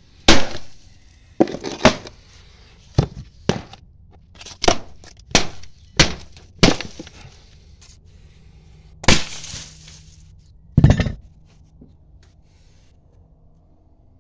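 About eleven hammer blows, spaced irregularly, knocking an old window screen out of its frame in a basement window opening; each blow is a sharp crack with a short rattle. The last blow lands about eleven seconds in.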